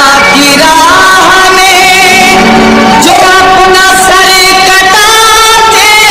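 Background music: the intro of a Muharram devotional song, a sung melody with sliding notes over instruments, with no clear words yet.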